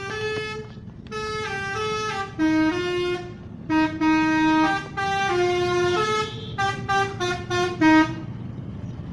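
Telolet musical horn on the Hasyim Asyari bus playing a tune as a run of short and held notes, stopping about eight seconds in. A low vehicle rumble runs underneath.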